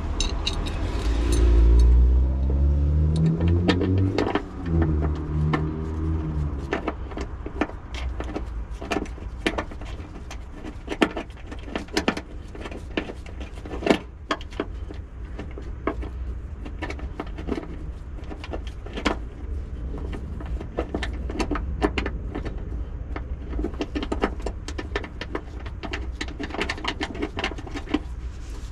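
Scattered metallic clicks and clinks as a car battery's metal tie-down bracket is fitted and its bolt is turned with a 12 mm socket ratchet. Under them is a steady low hum, and in the first several seconds a vehicle's low rumble rises and fades away.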